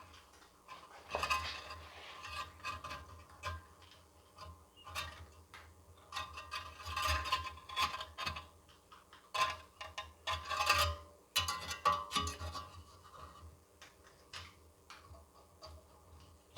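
Irregular metallic clicks, clinks and rubbing from small parts being handled during work on a mower engine's recoil pull-cord starter and its spring-loaded pulley.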